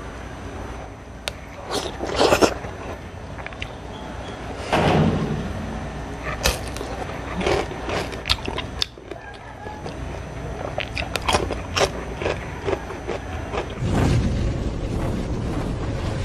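Close-miked eating sounds: scattered utensil clicks and crunching and chewing of crispy fried galunggong (round scad) and vegetables. A louder steady rushing sound starts about two seconds before the end.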